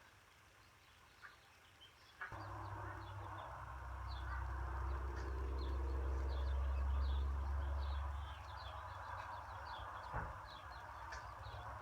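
Small birds chirping repeatedly with short high calls. About two seconds in, a steady low rumble starts abruptly; it swells for a few seconds, then eases.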